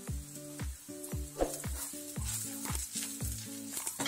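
Onions, green chillies and curry leaves sizzling in oil in a frying pan, with a spatula stirring in the spices. Background music with a steady beat plays over it.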